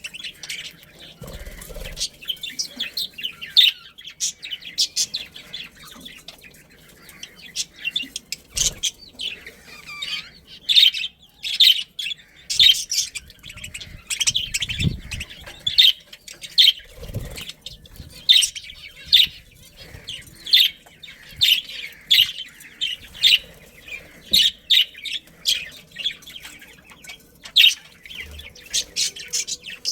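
Budgerigars chirping continually in quick, sharp chirps, with a few low thuds among them.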